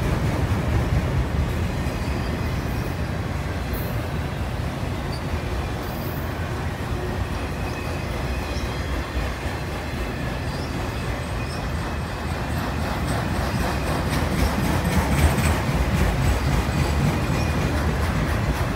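CN freight train's autorack cars rolling past: a steady rumble of steel wheels on rail, with faint thin squeals now and then, a little louder near the end.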